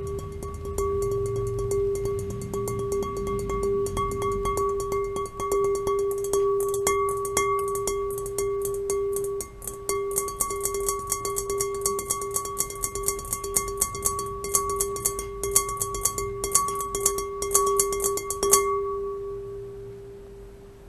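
Glass bowl ringing with one steady held tone and higher overtones, under rapid, dense clicking that thickens about a third of the way in. The clicking stops abruptly near the end and the tone dies away.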